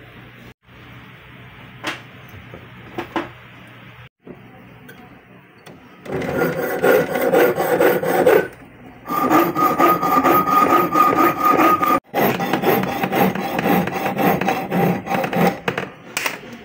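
Jeweler's piercing saw cutting a thin yellow metal sheet: fast rasping strokes with a ringing tone from the blade, starting about six seconds in and pausing briefly twice. Before the sawing there is only quiet handling noise with a few faint clicks.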